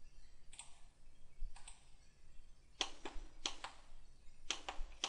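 Faint computer mouse clicks: two or three single clicks, then three quick pairs of clicks in the second half.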